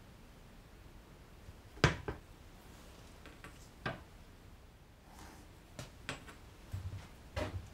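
Handling knocks on a workbench as a board and a steel rule are set down and moved: one sharp knock about two seconds in, a smaller click about four seconds in, then a scatter of light taps and clicks.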